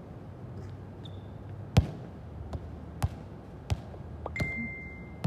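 A series of about six sharp thuds at irregular spacing, with a short steady high tone starting about four seconds in.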